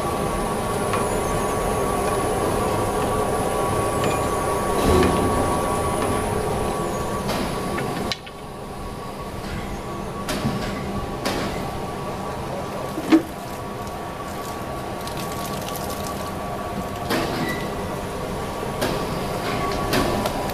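Plastic film water squeezer (dewatering machine) running with a steady mechanical hum and a high whine, with scattered knocks. The sound drops suddenly quieter about eight seconds in, and a single sharp knock stands out a few seconds later.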